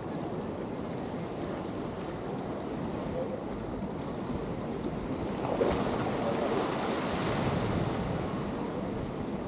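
Ocean waves washing in along a rocky shoreline, a steady wash that swells about halfway through and then eases off.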